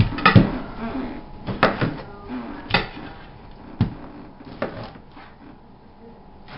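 A large kitchen knife slicing through a peeled pineapple, the blade knocking down onto the cutting surface in about six irregular, sharp knocks.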